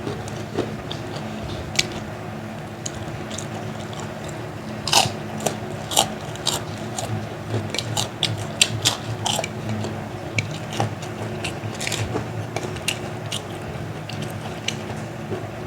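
Close-up chewing of crunchy kerupuk crackers and fried nuggets: a run of sharp, crackly crunches, busiest in the middle.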